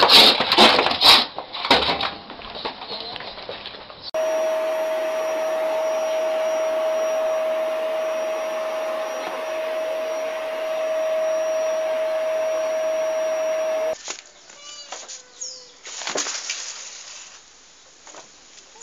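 Clattering knocks for the first few seconds. Then a steady motor whir with one constant hum runs for about ten seconds and cuts off suddenly, and quieter scattered sounds with a few short chirps follow.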